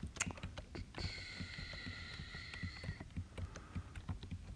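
Typing: a string of light, irregular key taps as letters are entered and deleted. A faint steady high tone sounds for about two seconds in the middle.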